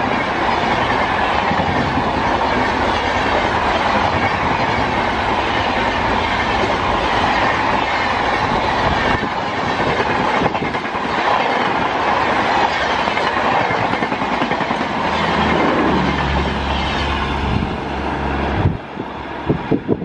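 Passenger express train coaches rushing past at about 110 km/h: a loud, steady noise of wheels running on the rails. The noise drops off sharply near the end as the last coach goes by.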